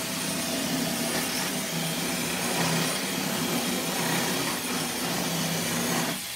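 Cordless drill running steadily under load as it bores into the sheet steel of an ATM cash cassette to drill out its lock. The motor stops abruptly just before the end.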